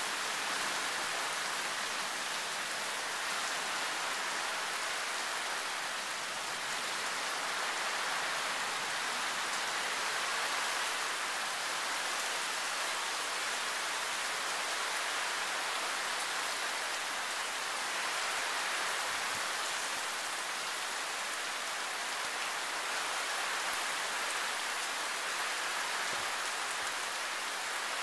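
Heavy tropical thunderstorm rain falling steadily, quite loud, with no thunder clap standing out.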